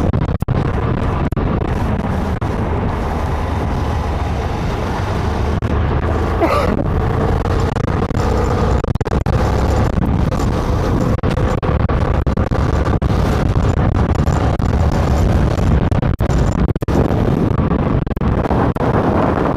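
Steady, loud low rumble of a vehicle running, with faint steady tones above it.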